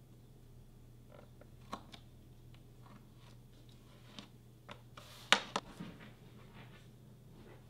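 Scattered light clicks and taps of tools and leather being handled on a workbench cutting mat, with one sharper knock about five seconds in, over a faint steady low hum.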